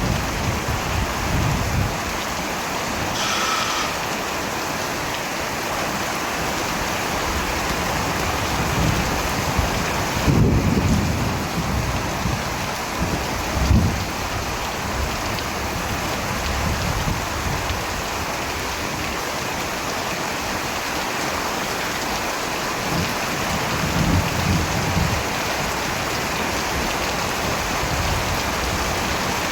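Steady, heavy rain falling, with low rolls of distant thunder: one about ten seconds in, a short one soon after, and another later on.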